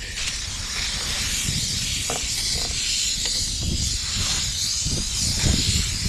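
Aerosol spray can hissing steadily as sealant is sprayed, with an uneven low rumble underneath.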